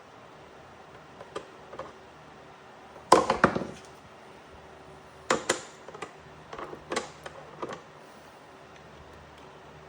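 Small hard parts being handled on a workbench: a series of clicks and clatters. The loudest is a rattling cluster about three seconds in, with more scattered knocks a few seconds later.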